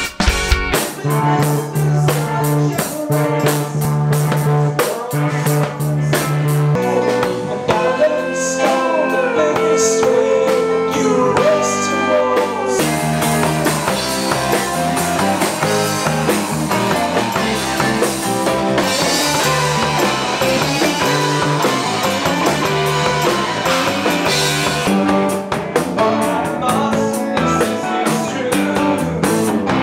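Live rock band playing: electric bass, electric guitar and drum kit, with notes gliding in pitch a little before halfway.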